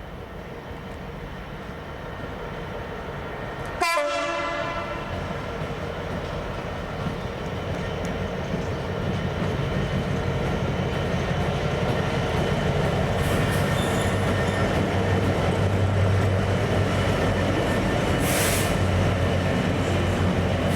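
Freight train passing through a station: a short horn blast about four seconds in, then the locomotive's engine drone and the rolling of the wagons, growing steadily louder.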